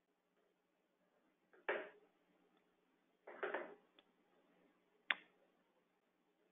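Three faint, brief desk-side clicks and knocks, the last a single sharp click, from a computer mouse and hands on the desk, heard through a narrow-band webinar audio feed.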